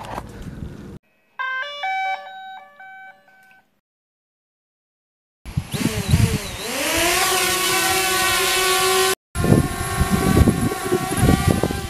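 A DJI Spark mini drone plays a short run of electronic startup beeps, then after a pause its four propeller motors spin up into a high, rising whine that settles to a steady buzz as it lifts off and hovers. In the last few seconds the buzz is mixed with gusty wind knocks on the microphone.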